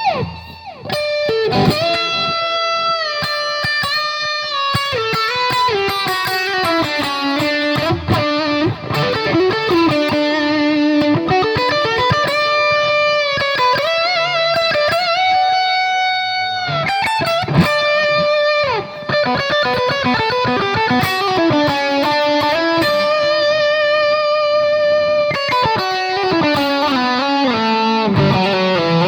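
Ibanez AZ-2402 Prestige electric guitar played through an amplifier: melodic single-note lines with sustained notes, slides and bends, briefly pausing about a second in and again past the middle.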